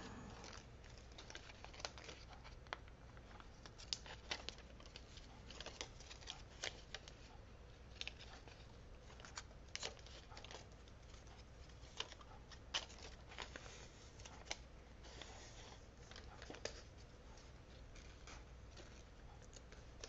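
Faint, scattered clicks and crinkles of paper handling as glue dots are peeled from their backing and pressed onto a cardstock layer.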